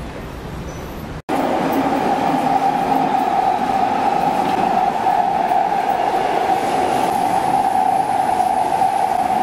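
Rome Metro Line C train running at speed, heard from inside the carriage: a steady rolling noise with a strong, even whine. After a short break about a second in, it carries on louder.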